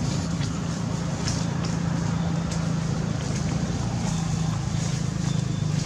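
A steady low engine hum, with a few faint clicks over it.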